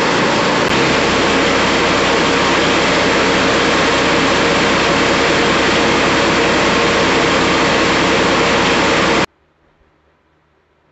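Small single-cylinder gasoline engine running steadily, driving the barrel drum wheels of an amphibious ATV's front drive section. The sound cuts off abruptly about nine seconds in, leaving faint room tone.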